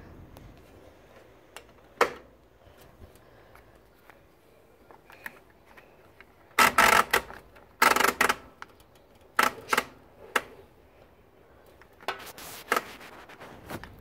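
Mechanical timer dial on a Hoover 7.5 kg top-loading washing machine being turned by hand, clicking in several short runs with pauses between, the longest runs a little past halfway.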